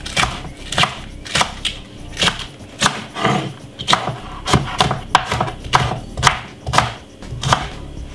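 Kitchen knife chopping spring onion on a cutting board: a steady run of sharp strokes, about two a second.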